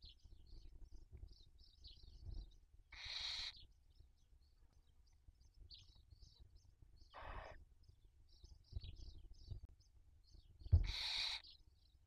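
Barn owls in the nest giving three short hissing calls, each about half a second long, about 3, 7 and 11 seconds in. Faint high chirps and a few low bumps sound between them.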